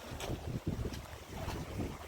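Wind buffeting the microphone, an uneven gusty rumble with a couple of faint clicks in the first second.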